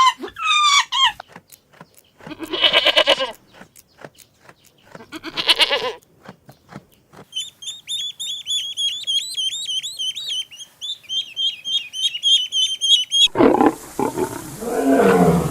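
A string of animal calls: a short gliding call at the start, two pulsing bleats, then several seconds of rapid high chirping from a small bird, and near the end a loud, deep roar begins.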